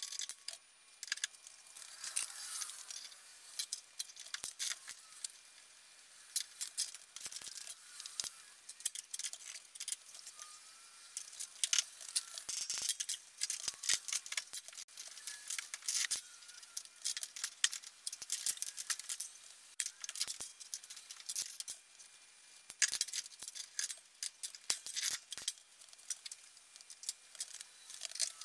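Hand wrench clicking and clinking against steel bolts and fittings while front suspension bolts under the truck are worked loose, in irregular runs of quick metallic clicks.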